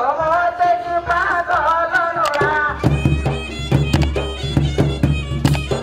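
Traditional folk music for a danda nacha dance. A high melody line wavers and bends in pitch for the first half, then drum beats and a low steady drone take over from about halfway.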